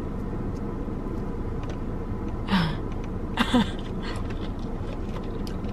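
A person eating a sauce-dipped fried chicken finger, with faint mouth and chewing clicks over a steady car-cabin hum. There are two short breathy voice sounds, about two and a half and three and a half seconds in.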